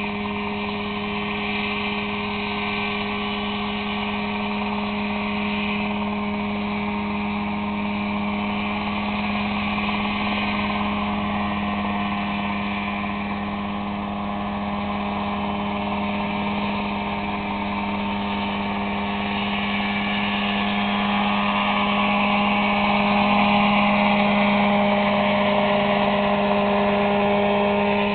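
Mosquito ultralight helicopter hovering low, its engine and rotor making a steady, even drone. The sound grows louder about two-thirds of the way through as the helicopter climbs away.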